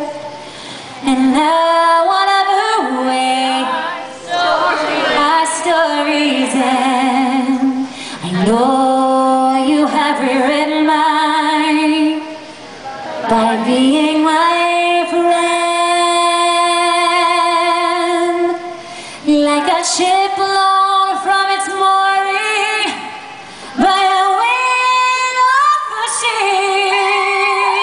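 A woman's solo voice singing a slow ballad a cappella into a microphone, in phrases with short breaths between them. The notes are sustained with vibrato, and one long held note comes about halfway through.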